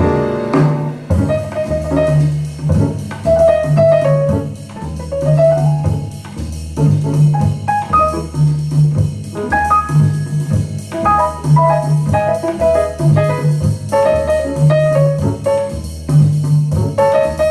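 Recorded jazz-blues music playing: piano over a repeating bass line, with drums.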